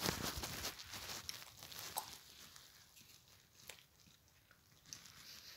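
Faint handling noises from a small perfume bottle being picked up and opened: light rustling in the first second, then a few soft scattered clicks.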